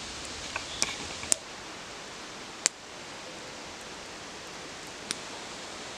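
A smouldering wood campfire giving about five sharp, scattered pops over a steady rustling hiss.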